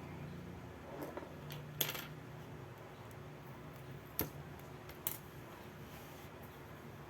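Three sharp clicks of small metal tools or phone parts being handled and set down on a work surface, over a low steady hum.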